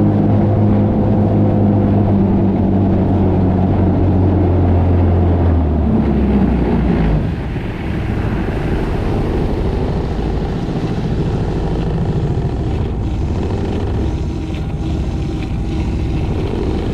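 Aquanami Jetangler Pro jet kayak's engine running under way with a steady low drone. About six or seven seconds in, the engine note drops and the rush of water and spray along the hull takes over.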